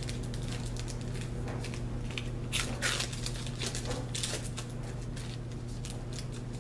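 Foil trading-card pack wrapper being torn open and crinkled: a run of sharp crackles and crinkles, with louder rips about two and a half and four seconds in.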